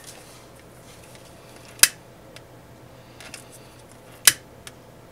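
A lighter clicking twice, about two and a half seconds apart, as it is sparked to heat-seal the cut edges of a ribbon piece so they don't fray.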